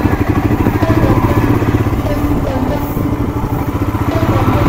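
Motorcycle engine running at low revs with an even, rapid pulse while the bike is ridden slowly.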